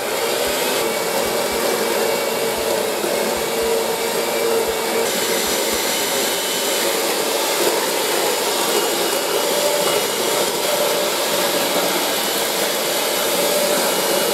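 Electric hand mixer running steadily at an even pitch, its beaters whipping boiled potatoes with butter and milk into mashed potatoes in a stainless steel bowl.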